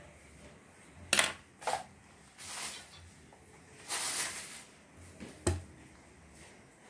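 Sharp metallic clicks and softer scraping from a chrome manual staple gun being handled while its staples are jammed inside. There are two clicks a little after a second in, scraping twice in the middle, and one more sharp click near the end.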